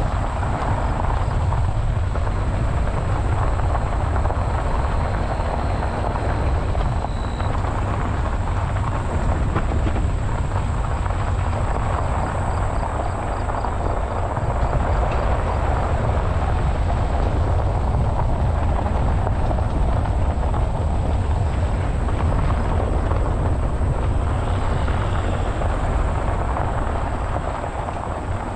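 Steady low rumble of heavy harvest machinery running, mixed with wind buffeting the microphone.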